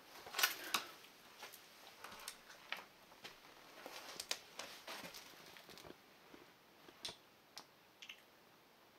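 Irregular light knocks, creaks and crackles of someone walking about on a littered floor. The loudest cluster comes about half a second in.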